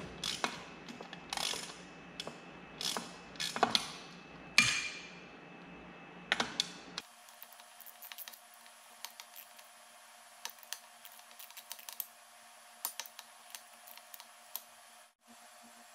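Ratchet wrench clicking in short bursts as the 10 mm bolts holding the outboard's lower unit are backed out, with metal clinks between. About seven seconds in the sound suddenly turns faint, leaving only scattered light clicks.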